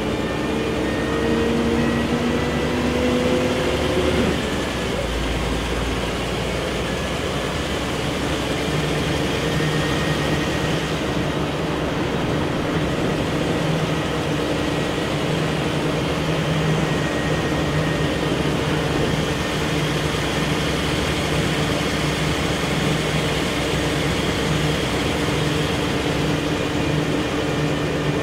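Scania L113CRB bus's rear-mounted 11-litre six-cylinder turbo CNG engine heard from inside the passenger cabin. The engine note rises for the first four seconds and drops sharply as the ZF five-speed automatic shifts up. The engine then runs at a steady speed under road noise while the bus cruises.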